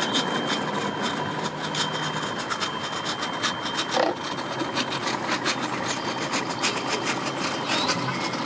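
Yamaha VX250 outboard motor running at low speed as the boat idles away from the dock, with other boat motors around it: a steady, noisy drone. A short sharp sound stands out about four seconds in.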